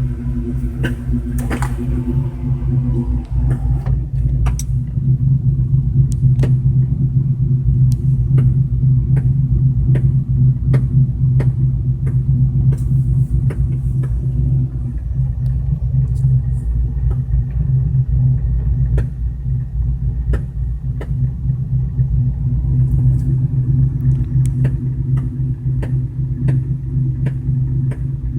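A car engine running steadily, with a sharp, regular thump or knock in the passenger side of the engine bay, about one and a half times a second.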